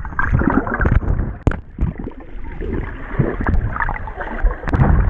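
Pool water heard from underwater: muffled churning and bubbling from swimmers thrashing nearby, with a few sharp knocks.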